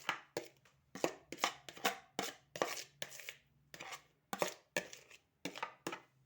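A raw turnip being grated by hand: a run of quick rasping strokes on the grater, about two or three a second, with short pauses between groups.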